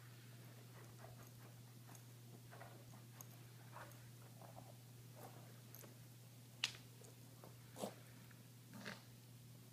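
Small fluffy dog snuffling and rubbing its face against the rug, faint, as an itchy allergic dog does. Three louder short sounds come about a second apart in the last third.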